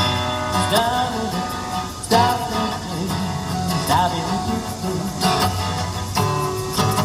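Live acoustic guitar accompaniment playing through an instrumental break in a song, with a melody line bending over the chords.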